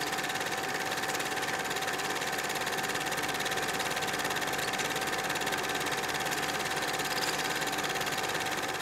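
Old film projector running: a rapid, even mechanical clatter with a steady whine.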